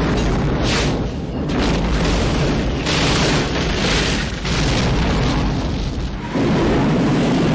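Film sound effects of a huge hangar explosion. Several heavy booms and blasts follow one another, with the rumble of the fireball swelling deeper near the end.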